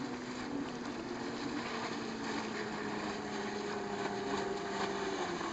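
Mariner 115 outboard motor on a 16-foot speedboat running at speed across the water: a steady drone whose pitch sinks slowly and drops a little more near the end. Wind noise on the microphone underneath.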